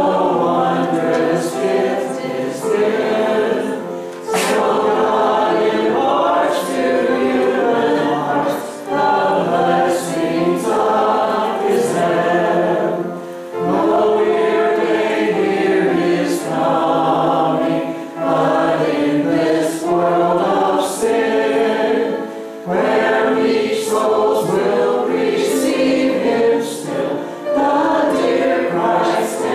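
A man and a woman singing a song together into handheld microphones, in sung phrases with short breaks between them.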